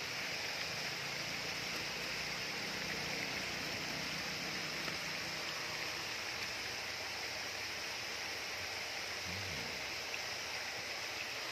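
Spring water flowing with a steady rushing sound.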